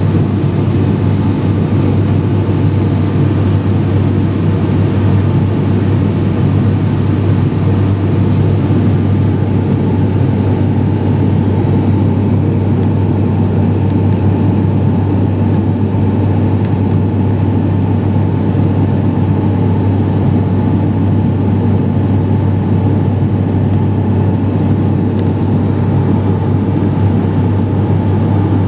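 ATR 72-500 turboprop heard from inside the passenger cabin: its Pratt & Whitney PW127 engines and six-bladed propellers make a steady drone with a strong low hum that holds without change.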